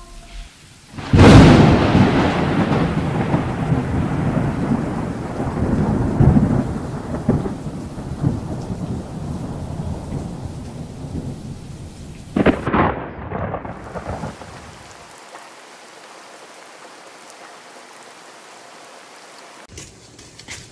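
A loud thunderclap about a second in, rumbling away over several seconds over steady rain, then a second sharp crack about halfway through, after which only fainter rain hiss remains.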